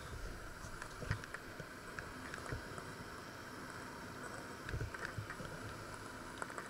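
Faint steady background noise with a few soft low thumps and light clicks.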